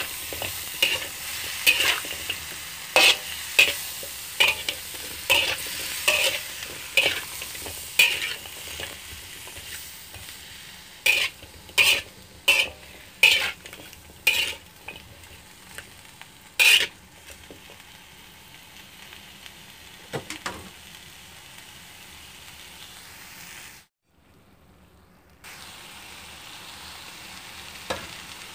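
Metal spatula scraping and knocking against a wok while stir-frying sliced bitter melon, over a steady sizzle. The strokes come about twice a second at first, then grow sparser and stop past the middle, leaving the sizzle alone; the sound cuts out for about a second and a half near the end.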